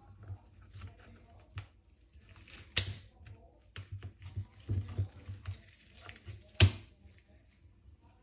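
Handling sounds of kitchen work: scattered light taps and clicks, with two sharp knocks, one about three seconds in and a louder one past six seconds.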